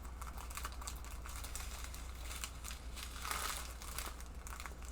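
Small plastic packets of diamond-painting drills crinkling as they are handled and sorted, in a run of quick crackles that swell briefly partway through.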